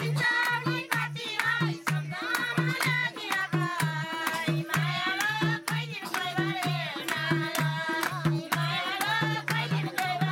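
Nepali dohori folk singing, with voices carrying a bending melody over a steady beat on madal hand drums. Hand claps keep time throughout.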